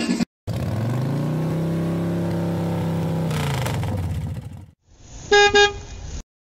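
Car sound effect: an engine revs up, runs steady for a few seconds, then winds down. It is followed by two short toots of a car horn.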